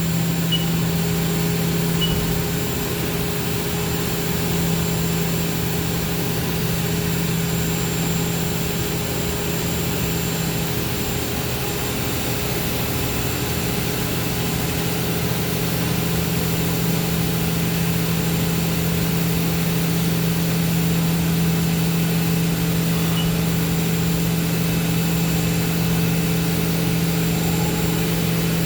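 CNC milling machine's spindle running at a steady speed: a constant hum with a faint high whine, the tool not yet cutting while the program steps slowly at 5% rapid in single block.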